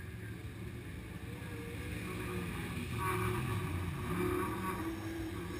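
Race car engines running, their pitch wavering up and down as they are revved, growing a little louder about two seconds in, with some wind on the microphone.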